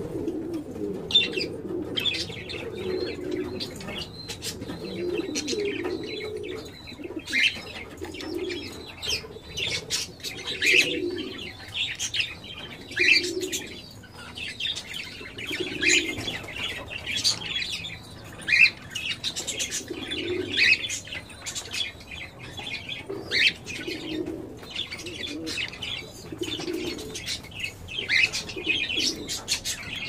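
Fischer's lovebirds chirping in short, high calls among many sharp ticks of pecking at leaves, with a low cooing sound recurring every one to three seconds underneath.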